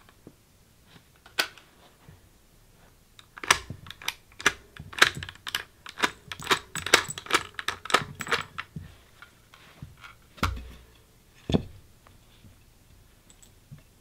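.223 cartridges being pushed one after another into a polymer PMag rifle magazine: a fast run of sharp clicks lasting about five seconds. Two heavier knocks follow near the end.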